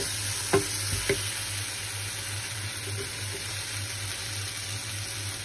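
Onion and tomato masala sizzling steadily in oil in a frying pan, cooked down to the point where the oil separates. Two short knocks come about half a second and a second in.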